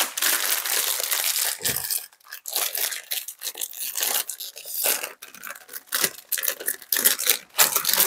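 Plastic snack bag of McDonaldland cookies crinkling and tearing as it is pulled open by hand: a dense run of crackles broken by short pauses.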